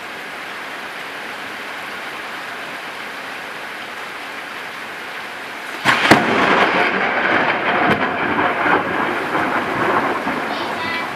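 Heavy rain falls steadily. About six seconds in, a close lightning strike brings a sudden sharp crack of thunder, followed by several seconds of loud rumbling that slowly dies away over the rain.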